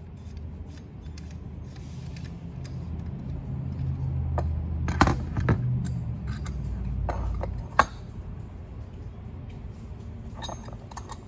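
Brass fittings of a water pressure regulator assembly handled and unscrewed by hand on a workbench: scattered sharp metal clinks and knocks, the loudest about five and eight seconds in, with a few more near the end. A low rumble rises in the middle and fades out around seven seconds in.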